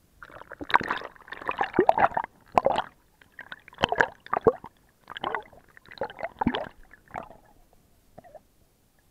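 Water gurgling and sloshing around a waterproof action-camera housing as it dips under the surface, in a run of irregular splashy surges with sharp clicks that thin out near the end.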